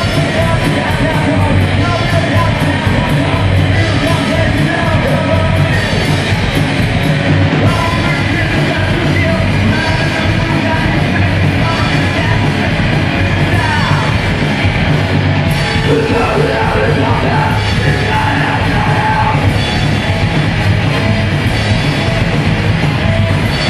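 Live rock band playing loud with electric guitar and bass guitar, and a singer yelling and singing into a microphone.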